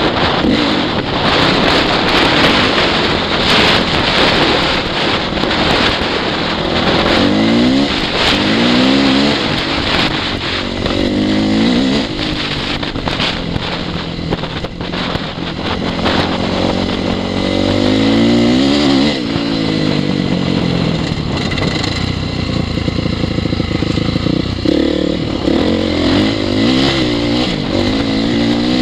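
2002 Honda CRF450R's single-cylinder four-stroke engine being ridden, revving up and easing off again and again as the bike accelerates and slows, with wind on the microphone.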